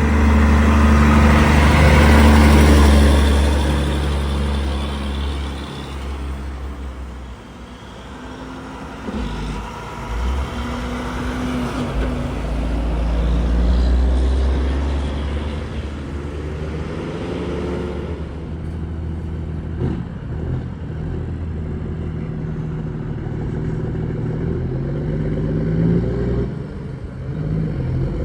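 Road traffic driving past: the loudest vehicle swells and passes about two to three seconds in, then further vehicles go by with engines changing pitch, rising as they accelerate near the end.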